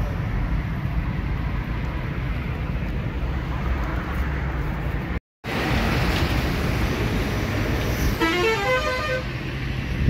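Steady road-traffic rumble, cutting out for a moment about halfway. Near the end, a vehicle horn sounds a short run of stepped notes.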